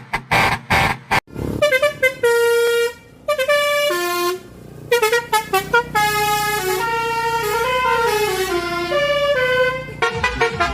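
Musical truck air horn playing a tune: a string of held notes stepping up and down in pitch. It follows a few quick, rapid blasts in the first second.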